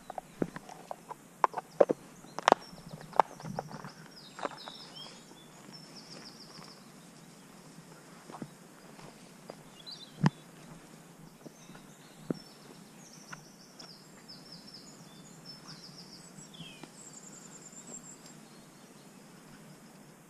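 Songbirds singing in the hedgerow, short trilled and repeated chirping phrases over a light outdoor hiss. A run of sharp knocks and clicks in the first four seconds, and two single ones about ten and twelve seconds in, are louder than the birds.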